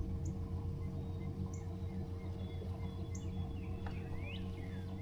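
A steady low mechanical hum with a constant tone, over which a few short, high chirps sound about a second and a half apart, then a rising-and-falling chirp near the end.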